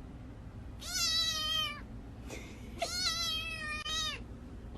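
A domestic cat meowing twice. Each meow is long, about a second, held level and then falling in pitch at the end.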